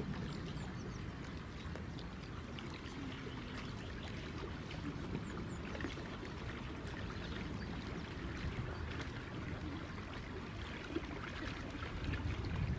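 Water splashing and trickling along the hull of a sailing dinghy under way, with small scattered splashes over a steady low rumble.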